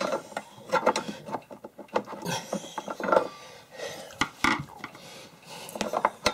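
Irregular clicks, taps and short scrapes of a screwdriver, screws and a metal mobile-radio mounting bracket being worked against the underside of a desk.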